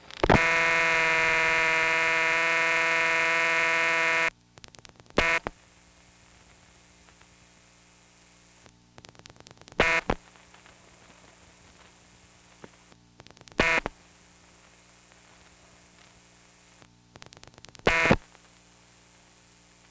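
Recording of an old rural telephone line. A loud, buzzy dial tone sounds for about four seconds and then stops. Over a faint line hum with scattered clicks, short bursts of ringback tone follow about every four seconds, the distinctive double ring.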